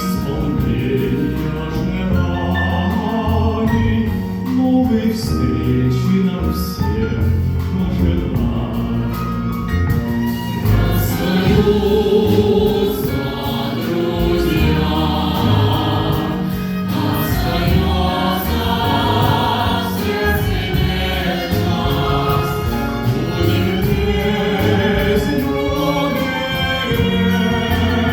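Live ensemble music with a choir singing over the instruments.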